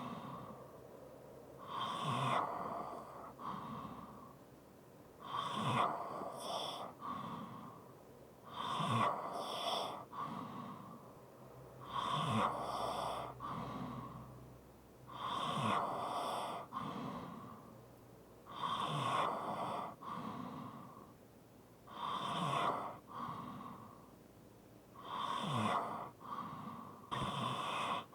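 A sleeping person breathing heavily with a light snore, about one breath every three seconds. Each breath has a low rasp as it starts, followed by a noisy rush of air.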